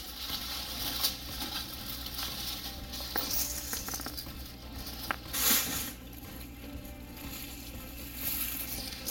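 Water from a salon shampoo-bowl sprayer running and splashing over foil-wrapped hair, a steady hiss with a brief louder rush about halfway through.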